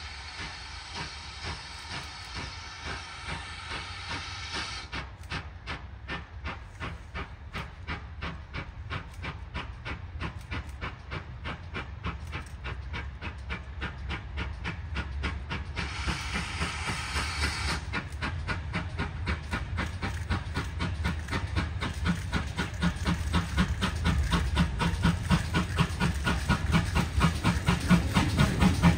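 GWR pannier tank steam locomotive 9681 working a train of wagons, its exhaust beats in a steady rhythm growing louder as it approaches. Steam hiss sounds over the beats for the first few seconds and again briefly after the middle.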